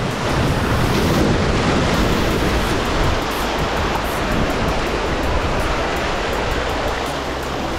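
Sea surf washing against coastal rocks: a steady rush of wave noise.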